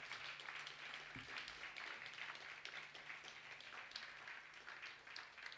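Faint audience applause, turned down low, with a faint steady low hum underneath.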